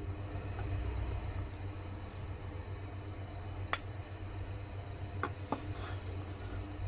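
A spoon clinks against a stainless steel mixing bowl: one sharp clink about halfway through, then two more close together a second and a half later. A steady low hum runs underneath.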